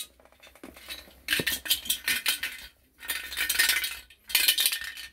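Loose metal rattling and clinking inside a brass kerosene-burner fuel tank as it is shaken upside down, in three bouts starting about a second in: the piece cut out by the hole saw being shaken out of the tank.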